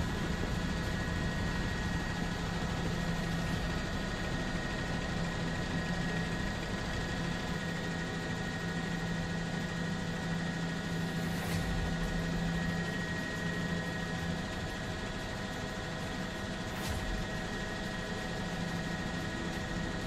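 Helicopter turbine engine and rotor running steadily: a constant drone with a low hum and a high, level whine.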